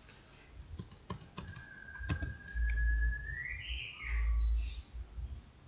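Computer keyboard and mouse clicks: a quick cluster of clicks about a second in and a couple more around two seconds. Two low dull thumps, the loudest sounds, fall in the second half, and a thin whistle-like tone holds, then rises and falls away.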